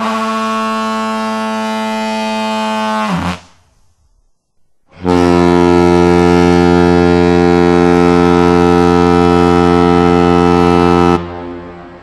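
Cartoon foghorn sound effect: two deep, steady horn blasts. The first lasts about three seconds and dips in pitch as it stops. After a short gap comes a longer, louder and slightly lower blast of about six seconds that cuts off into a fading echo.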